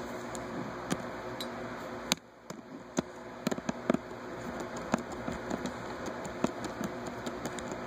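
Small precision screwdriver backing tiny screws out of a Samsung Galaxy S phone's plastic back frame: scattered light clicks and ticks over a steady background hum.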